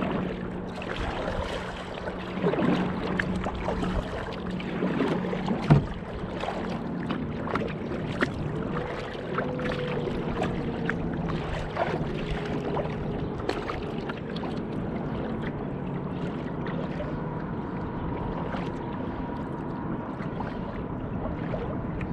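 Water lapping and splashing against a kayak hull, with many small splashes and drips, a sharp knock about six seconds in, and a steady low hum underneath.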